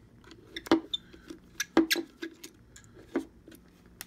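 Light clicks and taps of a plastic LED grill light handle being handled on a wooden table, with three sharper knocks about a second apart among them.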